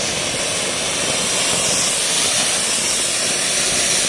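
Anar (flower-pot fountain firework) burning on the ground, spraying sparks with a loud, steady hiss.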